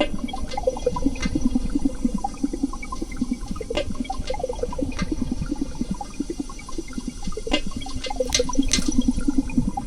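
Water bubbling and gurgling steadily, with many small splashes and drips.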